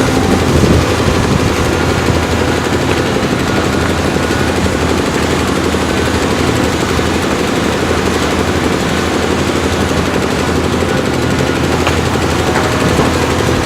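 Cat 320D excavator's diesel engine running steadily and loudly, with a rapid, even pulsing clatter.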